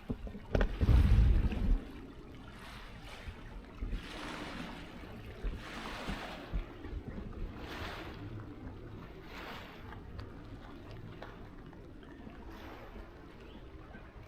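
Wind buffeting the microphone outdoors, with a loud low rumble about a second in, then gusts that swell and fade several times.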